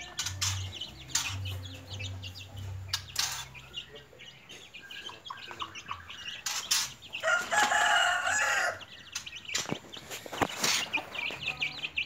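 Free-range village chickens (ayam kampung) feeding: chicks peeping steadily and a hen clucking low and repeatedly in the first few seconds. A rooster crows once for about a second and a half, loudly, near the middle.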